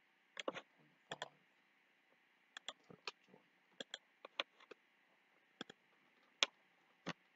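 Computer mouse clicking: about twenty short, faint clicks at an uneven pace, several coming in quick pairs.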